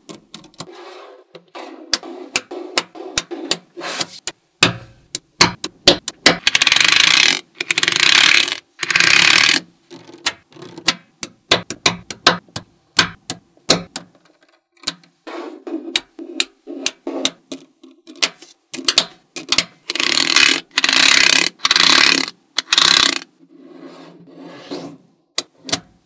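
Small magnetic balls clicking and snapping together as strips of them are laid onto a magnet-ball structure. Scattered sharp clicks come with a few longer rattling runs of balls rolling and rubbing over the build.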